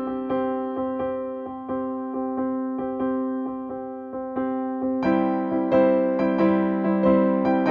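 Background piano music: an electric piano plays a steady run of evenly spaced notes, getting fuller and a little louder about five seconds in.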